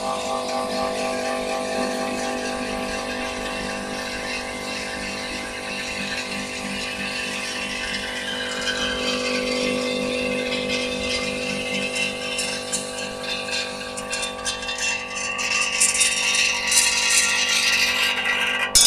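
A bucket elevator's stainless steel vibrating feed chute running, its vibrator giving a steady hum while the sheet-metal tray rattles. The rattling clicks get busier over the last few seconds.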